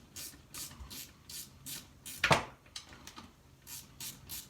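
Ratchet wrench with a socket clicking steadily, about three clicks a second, as a bolt is backed out, with one sharp knock a little past halfway.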